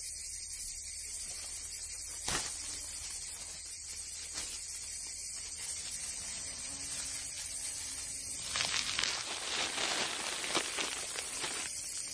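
Soft crackling and rustling over a steady high hiss, louder from about eight and a half to eleven seconds in: a swallowtail butterfly splitting and pushing out of its chrysalis.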